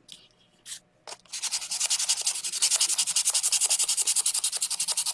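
Coarse sandpaper rubbed by hand along the edge of a chalk-painted coaster, wearing the paint back. A few single scrapes come first, then from about a second in a fast, even back-and-forth rasping at about ten strokes a second.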